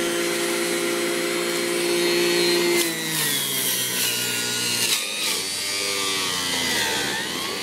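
Electric juicer motor running as kale is pushed down the feed chute and ground. Its whine holds steady for about three seconds, then drops in pitch and wavers as the greens load the motor, and climbs again near the end.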